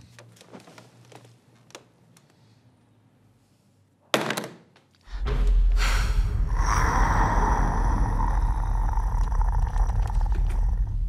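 A single thunk about four seconds in, then a monster's snarling roar with a deep rumble beneath it, loud and sustained for about six seconds before it cuts off suddenly.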